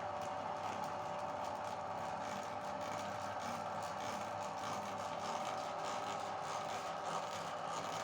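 Meat grinder running steadily, grinding chocolate: a constant motor hum with a fine, irregular crackle over it.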